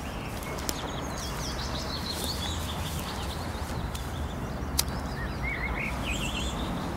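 Small birds singing and twittering over a steady low outdoor rumble, with one sharp click about five seconds in.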